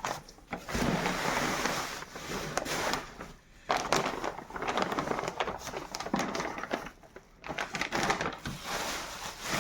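Bubble wrap and plastic packaging rustling and crinkling as it is handled and pulled out of a cardboard box, in bursts with a few short pauses.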